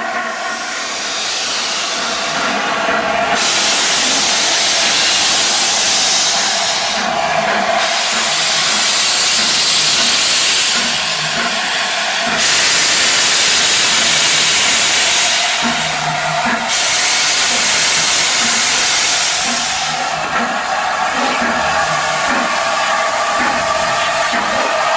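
LNER A4 Pacific steam locomotive No. 60009 getting under way slowly, its open cylinder drain cocks blowing steam in loud hissing gusts several seconds long. Slow exhaust beats come about once a second underneath, and a steady whistling tone sounds near the start and again in the last few seconds.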